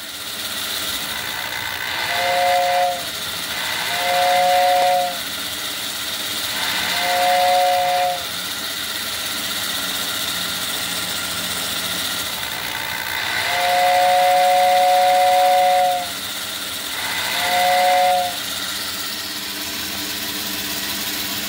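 Lionel 665 toy steam locomotive running on a roller stand with a steady whir, its tender's electric whistle blowing five two-note blasts that slide up in pitch as each starts; the fourth blast is long.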